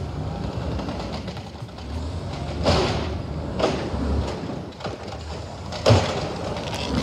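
Automated side-loader garbage truck running its diesel engine under load while the hydraulic arm lifts a trash cart and dumps it into the hopper. There are three sharp bangs as the cart is tipped and shaken, the loudest about six seconds in.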